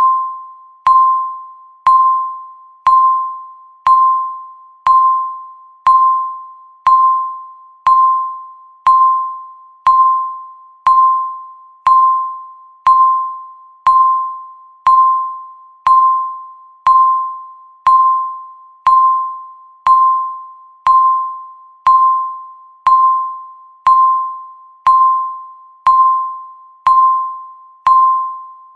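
Countdown timer's electronic tick: one short, bell-like ping each second, each fading away quickly, in a strictly even rhythm.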